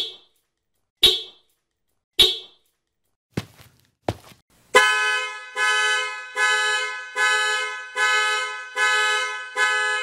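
Car key-fob lock chirps three times, about a second apart. A few seconds later the car's horn starts honking over and over, a little more than once a second: a car alarm going off.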